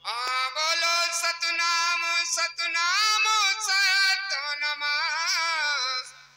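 A single high voice singing a drawn-out devotional melody (bhajan), its long notes wavering and gliding in pitch. It starts suddenly and stops about six seconds in.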